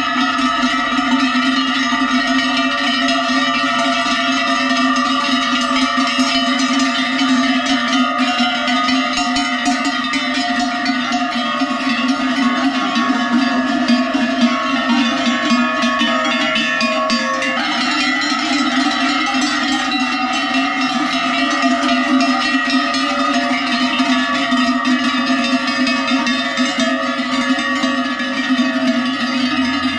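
Large Swiss cowbells clanging continuously, several bells ringing together as a steady chord with a dense rattle of strikes. The chord shifts a little past halfway.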